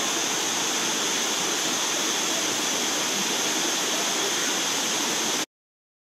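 Shallow water running over a rock waterfall cascade: a steady, even rush that cuts off suddenly about five and a half seconds in.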